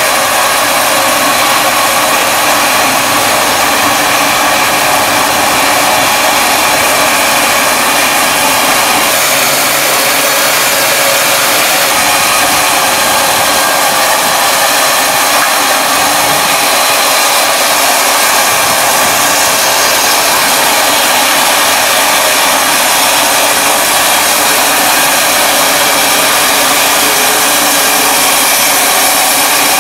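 Serra Africa SL 160 horizontal bandsaw mill running steadily, its band blade cutting lengthwise through a large oak log.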